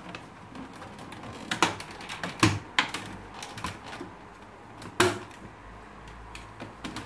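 Plastic snap clips on the side cover of a Samsung SCX-4623 laser printer clicking and popping as the panel is pried off, a run of sharp clicks and knocks. The sharpest come about two and a half seconds in and again about five seconds in.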